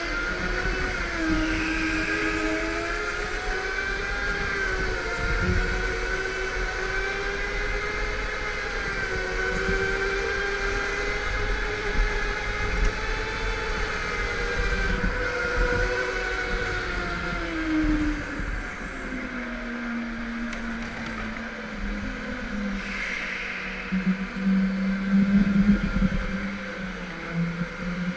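Go-kart motor heard onboard while lapping: its pitch rises and falls with speed, then drops to a lower, steadier note for the last ten seconds or so.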